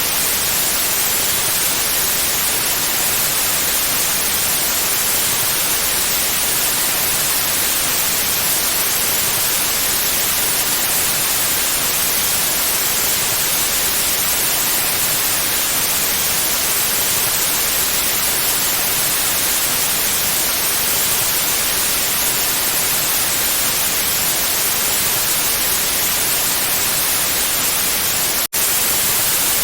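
Synthetic white noise: a steady, even hiss with its energy strongest in the high range. It drops out for an instant near the end, likely where the loop is joined.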